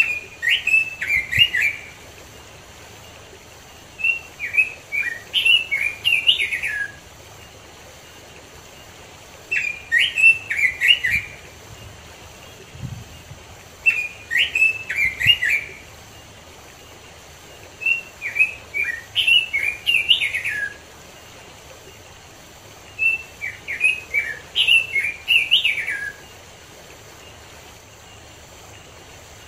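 Red-billed leiothrix (Pekin robin) singing in six quick warbled phrases of two to three seconds each, with pauses of a few seconds between them. A small waterfall and stream rush steadily underneath.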